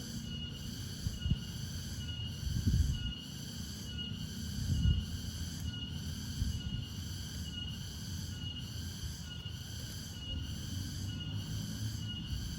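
Crickets chirping in a steady, even rhythm, a pulse well under a second apart, over a low rumble with a few dull thuds from handling or movement.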